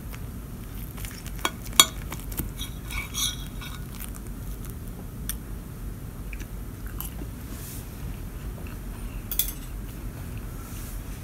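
Knife and fork clinking and scraping against a ceramic plate while cutting a grilled sandwich. There is a cluster of sharp clinks about one to three seconds in, the loudest near two seconds, and one more near the end, over a steady low hum.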